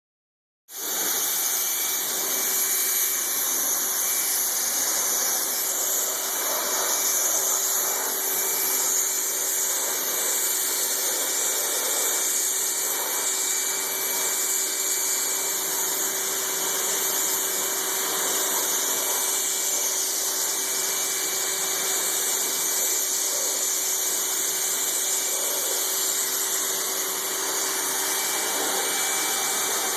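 A bodywork power tool running continuously, with a strong steady hiss and a steady whine.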